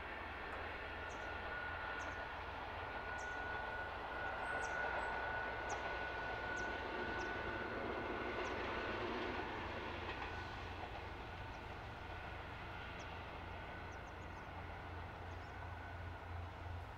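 KiHa 40/48 series diesel railcars approaching from a distance: a low diesel engine throb with rail running noise, the throb growing louder near the end. A faint steady whine runs through the first half.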